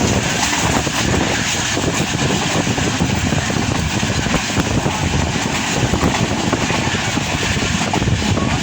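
Passenger train running: a steady, even rumble and rush of running noise.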